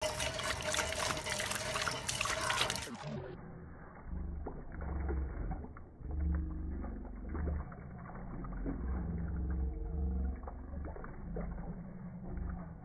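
Water pouring from a hand-pump spout and splashing over a dog's face and onto wet concrete. About three seconds in the sound turns muffled, with low rumbling.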